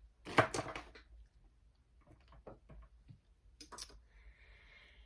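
A cluster of sharp clicks and taps just under a second in, then a few fainter taps and a brief soft hiss near the end: eyeshadow palette and makeup brush being handled.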